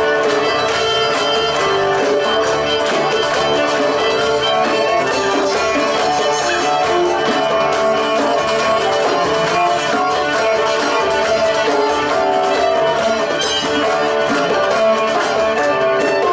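Live folk band playing an instrumental passage: a fiddle leads over strummed acoustic guitar, with a hand drum keeping a steady beat.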